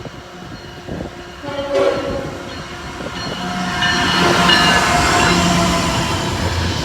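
CSX freight locomotive horn sounding as a fast intermodal train approaches and passes, a steady multi-note chord starting about a second and a half in, over the building rumble of the train.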